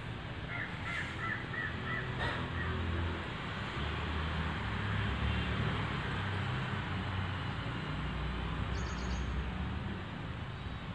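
Steady outdoor background noise with a low rumble. About half a second in, a bird gives a quick run of about six short calls. A brief high chirp comes near the end.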